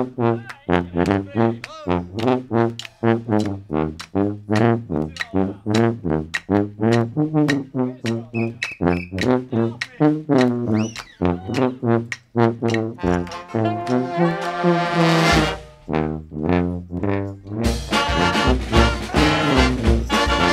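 Brass band music led by low brass, playing a run of short, separate notes. About three seconds before the end a fuller ensemble comes in with a steady beat.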